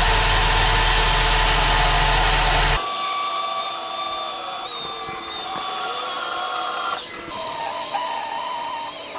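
Power tools running on a truck's axle spindle, a loud steady whir with a thin whine that drifts in pitch. The sound changes abruptly about three seconds in and again about seven seconds in.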